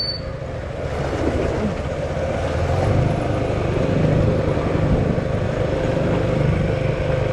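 Motorcycle engine running steadily with road and wind noise, getting a little louder about a second in.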